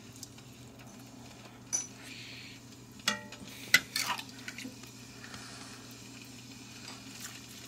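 A few clinks and knocks of a ladle against a pot and a ceramic bowl, including a short ringing clink about three seconds in and a sharp click soon after, over a steady low hum.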